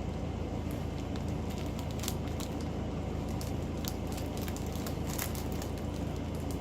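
Small plastic bags of diamond painting drills crinkling and clicking as they are sorted by hand, over a steady low hum.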